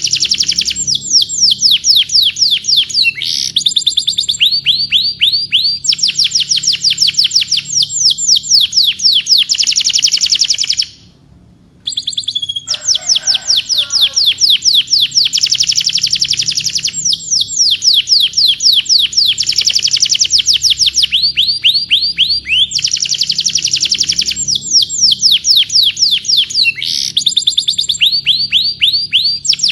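Domestic canary singing long, fast trills of rapidly repeated downward-sweeping notes, broken by short pauses. Near the middle the song cuts out for about a second.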